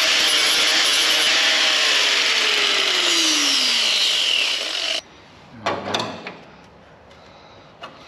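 Power tool cutting car-body sheet metal: a loud, harsh cutting noise with a whine that falls in pitch, stopping abruptly about five seconds in, followed by a few light knocks.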